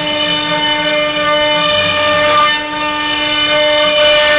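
ShopBot CNC router spindle running with a steady whine, its end mill ramping down into plywood and cutting, with the rasp of chips being cut under the whine. The sound dips briefly about two and a half seconds in.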